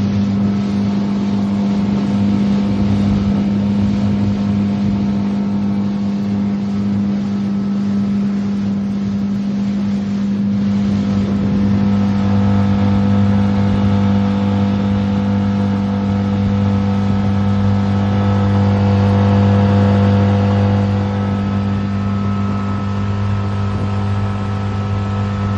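Motorboat engine running at a steady speed, a constant low hum with a rushing noise over it.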